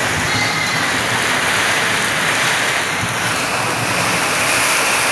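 Heavy rain falling steadily, a loud even hiss.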